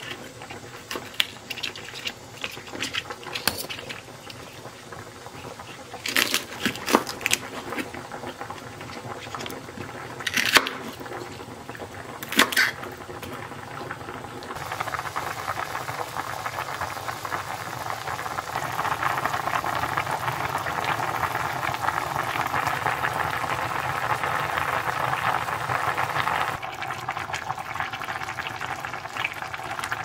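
A knife chopping thick green onions on a plastic cutting board, in scattered knocks. From about halfway, kimchi stew boils hard in a cast-iron pot with a steady bubbling that grows louder and then holds.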